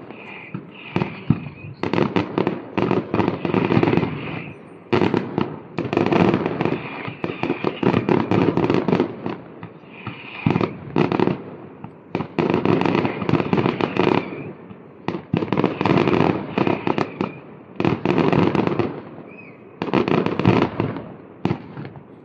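Fireworks display: aerial shells going off in rapid clusters of bangs and crackles, a new volley every couple of seconds with short lulls between.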